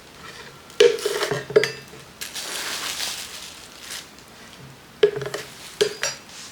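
Food storage containers being handled and set down: a cluster of sharp clacks about a second in and another near the end, with a stretch of rustling and sliding between.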